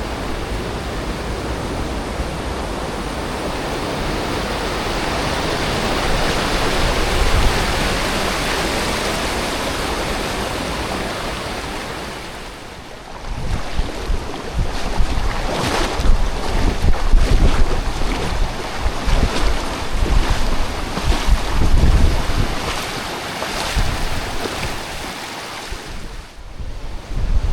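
Rushing creek water as a steady, even rush. About halfway through it dips and turns gusty, with uneven low rumbles of wind buffeting the microphone over the water.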